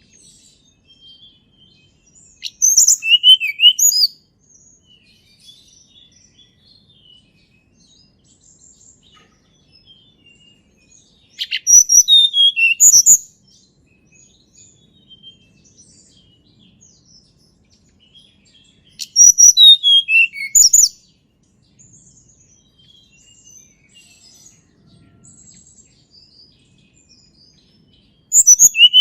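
A tledekan gunung (Sunda robin) singing: short phrases of rapid, high, partly descending notes, each lasting about one and a half to two seconds. Three phrases come several seconds apart, and a fourth begins near the end, with faint chirps in between.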